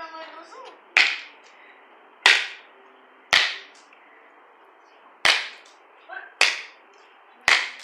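Airsoft gun firing single shots: six sharp cracks, roughly a second apart but unevenly spaced.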